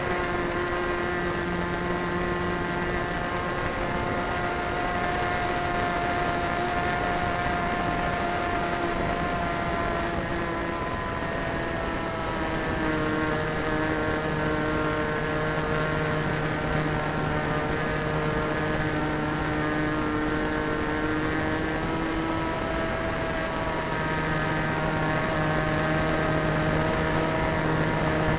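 Super Tigre .90 two-stroke glow engine running steadily in flight with its propeller, heard from a camera on the plane's tail along with the rush of air. Its pitch drops slightly a little under halfway through and rises again near the end.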